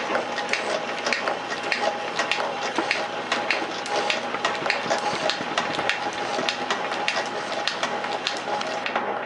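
Metal shaper running, its ram stroking back and forth as the cutting tool planes the port face of a steam engine cylinder. A steady mechanical whine with a sharp click repeating a couple of times a second.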